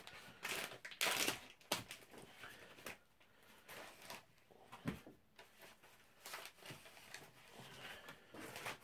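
Crinkling and rustling of MRE ration packaging, the heated entree pouch and its heater bag being handled, in short scattered bursts with a light knock about five seconds in.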